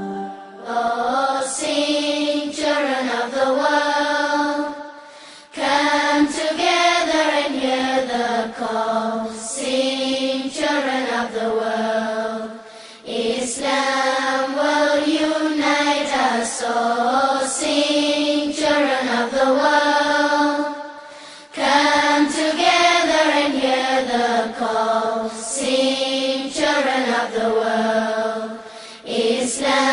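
A solo voice in devotional chant, singing long melodic phrases of about eight seconds each with short pauses between them.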